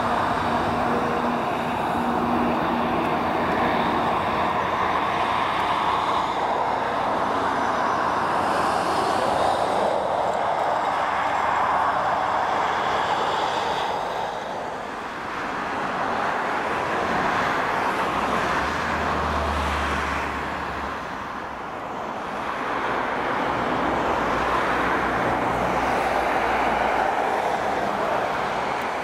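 Steady rush of road traffic that swells and fades, with two brief dips in loudness.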